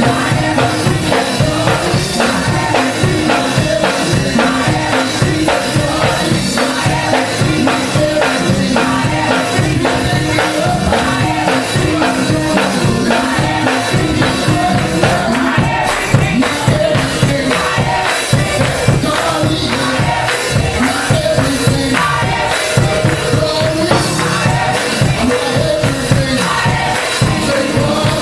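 Gospel mass choir singing with live band accompaniment and a steady beat.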